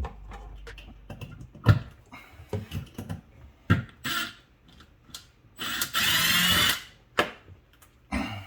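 Scattered knocks and clicks of plastic dishwasher parts being handled, and about six seconds in a loud, roughly one-second whir of a cordless drill driving out a screw.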